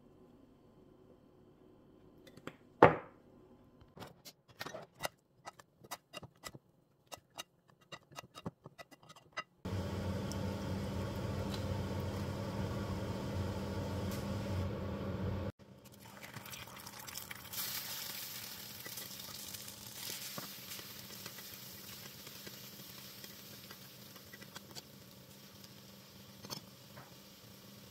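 A loud knock about three seconds in, then a run of light taps, then a steady rushing noise for about six seconds that cuts off suddenly. After that, shrimp, egg and green peas sizzle in a stainless steel frying pan as they are stir-fried.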